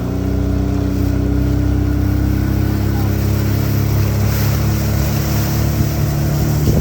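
Honda 50 hp four-stroke outboard motor running steadily, with a slight rise in pitch and level in the first second.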